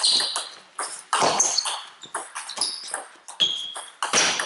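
Table tennis rally: the ball struck back and forth, sharp knocks of the ball on the bats and the table about twice a second. Short high squeaks of sports shoes on the hall floor come in between.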